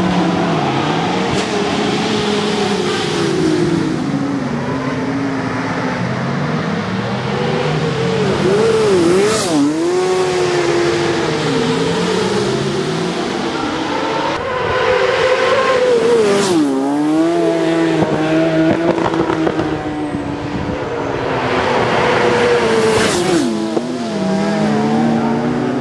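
Racing motorcycles at full race pace on a road circuit, engines revving up and dropping through gear changes as several bikes are heard at once. Three bikes pass close by, about a third, two thirds and nine tenths of the way through.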